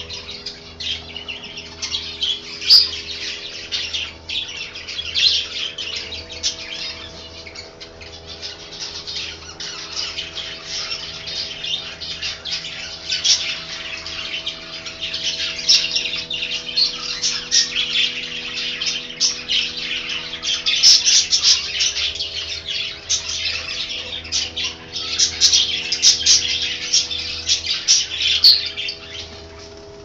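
Mixed flock of aviary finches (zebra finches, goldfinches and canaries) chirping and calling over one another without a break, growing busier and louder in the second half, over a steady low hum.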